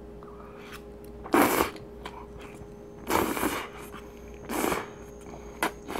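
A person slurping ramen noodles off chopsticks: three loud, noisy slurps about a second and a half apart, each lasting about half a second, followed by a short sharp click near the end.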